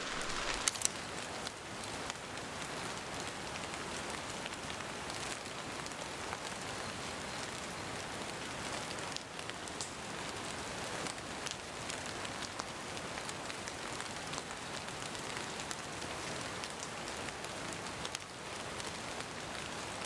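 Steady rain falling, a dense even hiss flecked with many small drop taps, with one short knock just under a second in.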